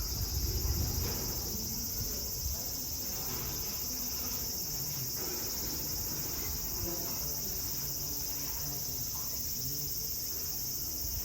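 Steady, high-pitched insect chorus droning without a break, with faint irregular low sounds beneath it.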